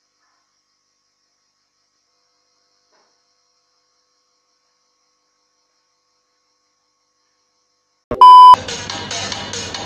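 Dead silence for about eight seconds, then a very loud, short TV test-tone beep as a colour-bars transition cuts in. Electronic music with a steady beat starts straight after.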